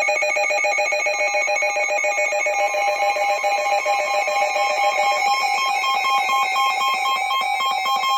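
Electronic emergency alert attention tone, a rapid warble of several tones at once, sounded ahead of a flash flood warning message. About five seconds in the lowest tone drops away and a pulsing higher tone comes forward.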